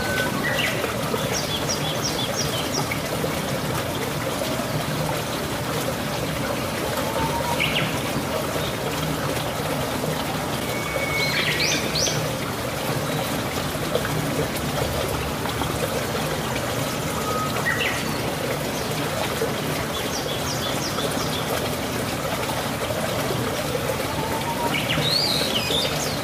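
Steady rushing background noise, with birds chirping now and then: quick high series of chirps a couple of seconds in and again past the twenty-second mark, and a few rising calls in between.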